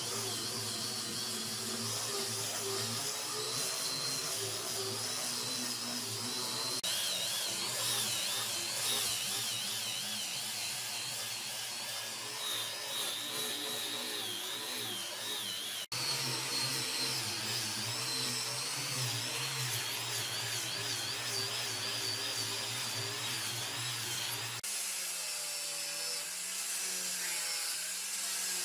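Power tools running steadily, with a wavering whine. The sound changes abruptly three times, about a quarter, half and most of the way through.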